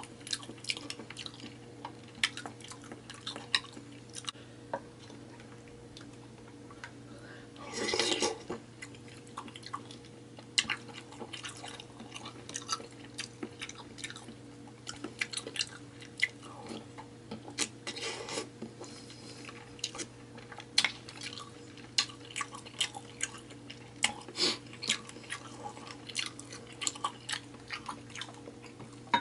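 Close-miked mukbang eating sounds of a seafood boil being eaten: chewing, wet smacks and short clicks throughout, with a brief louder noisy sound about eight seconds in. A faint steady hum runs underneath.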